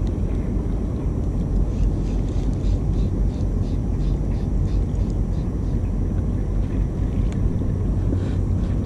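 Boat motor running with a steady low rumble, and faint, even ticking about three times a second over it.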